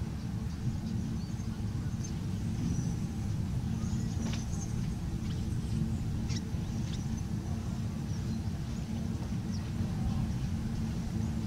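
A steady low mechanical hum and rumble, with a few short, faint high chirps over it.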